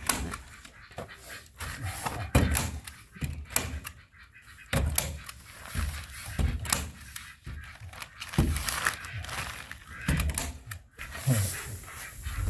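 Irregular knocks and thuds, with handling noise in between.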